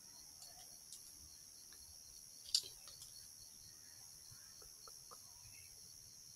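Quiet night ambience: a steady high-pitched chirring of crickets, with a few faint ticks and one sharper snap about two and a half seconds in.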